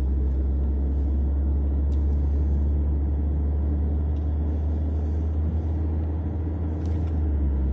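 Car cabin noise while driving at highway speed: a steady low rumble of the engine and tyres on the road, heard from inside the car.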